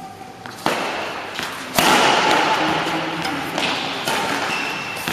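Badminton rackets striking the shuttlecock during a doubles rally: two sharp smacks, the first under a second in and the second about a second later, over steady hall noise.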